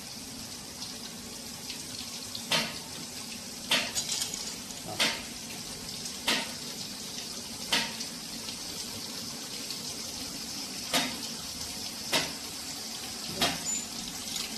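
Soft-boiled egg peeling machine running under a stream of water: a steady hiss of pouring water, broken by about ten sharp knocks a second or so apart.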